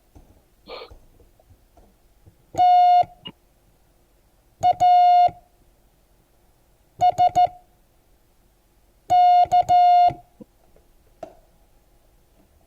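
Morse code practice tone keyed at one steady pitch, sending four letters spaced about two seconds apart: dah, di-dah, di-di-dit, dah-di-dah. That spells T-A-S-K, the word "task", sent for students to copy by ear.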